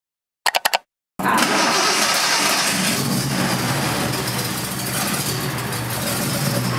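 A few short sharp blips out of silence, then about a second in a Nissan Skyline C110 "Kenmeri" car engine cuts in loud and runs steadily.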